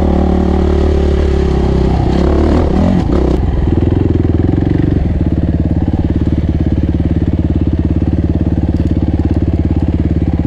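Suzuki RMX450Z's single-cylinder four-stroke engine running as the bike is ridden slowly along a dirt track, then settling into a steady, evenly pulsing idle about halfway through as the bike stops.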